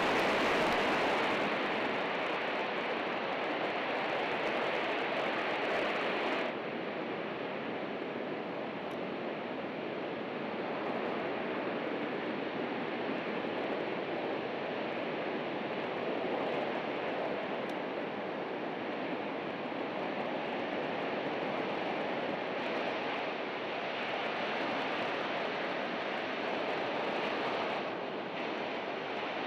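Jet engines of a C-17 Globemaster running on the ground as it moves along the runway: a loud, steady rush with no clear whine, which dips slightly and turns duller about six seconds in.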